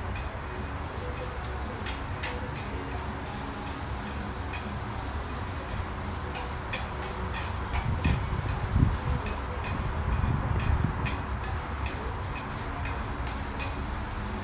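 Metal spatula blades chopping and tapping on a plastic cutting board, in irregular sharp clicks about one or two a second. A low rumble joins in for a few seconds past the middle.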